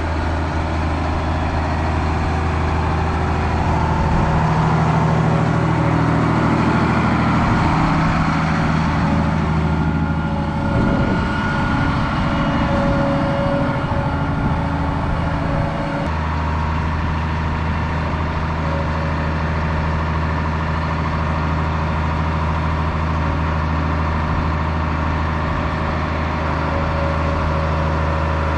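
A vehicle engine running steadily. Its sound changes for a stretch between about 4 and 16 seconds in, then switches suddenly back to the even run.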